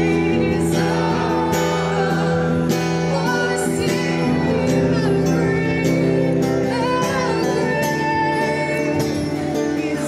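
A woman singing a worship song to a strummed acoustic guitar, amplified through a small portable PA speaker.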